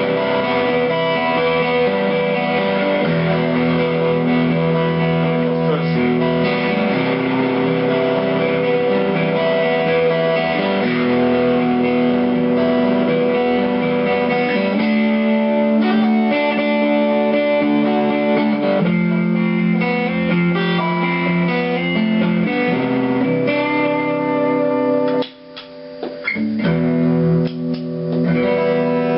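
Yamaha SG2000-style electric guitar build played in a sound demo: ringing chords and note runs. The playing breaks off sharply about 25 seconds in, then resumes.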